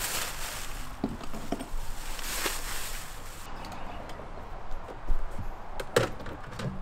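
Gear being handled on a bass boat: rustling, then a few sharp plastic knocks and clicks as the covers on the sonar display units are handled, the loudest about five and six seconds in.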